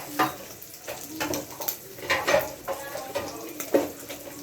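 Kitchenware being handled: a series of sharp knocks and clinks as items are set down and moved about, several times over a few seconds.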